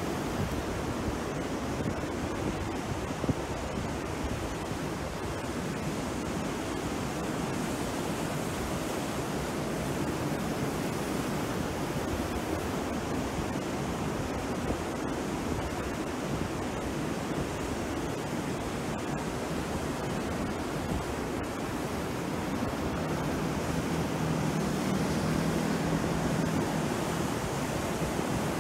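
Rough sea surf breaking and washing up the shore: a steady rush of water that swells a little louder near the end.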